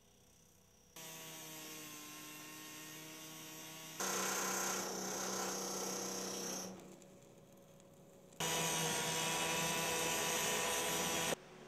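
Power tools cutting metal, heard in separate stretches that start and stop abruptly. There is a steady whine from about a second in and a louder, higher whine from about four seconds in. The loudest stretch comes near the end, where a handheld circular saw with an abrasive blade cuts through sheet metal, throwing sparks.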